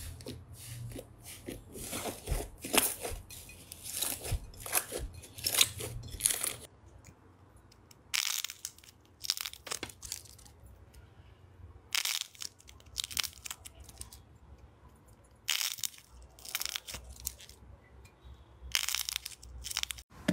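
Hands squeezing, poking and tearing slime, with crisp crackling and crunching in irregular bursts and short pauses between them. Near the end the crackling comes from a crispy-skin slime whose hardened crust breaks under the fingers.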